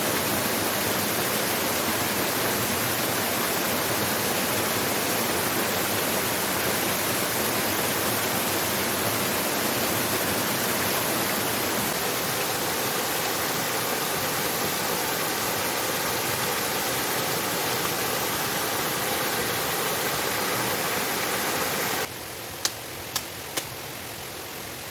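Waterfall, a steady even rush of falling water. Near the end it drops abruptly to a quieter level, and a few sharp clicks follow.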